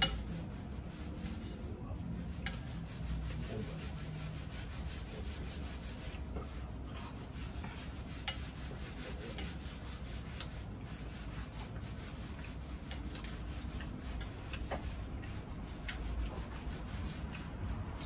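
Steady low room rumble with a few scattered light clicks and scrapes of cutlery during a meal.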